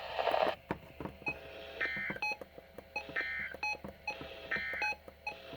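Electronic beeping over a radio channel: a short warbling tone followed by a brief beep, repeating about every second and a half, with faint clicks and hiss in between.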